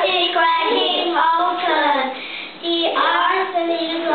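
Young children singing a song, with a brief break about two and a half seconds in.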